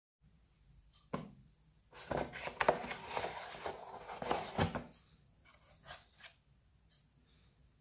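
Moulded paper-pulp egg carton being opened by hand: a click about a second in, then its locking tabs pulled free and the cardboard lid scraping and crackling open for about three seconds, followed by a couple of light taps.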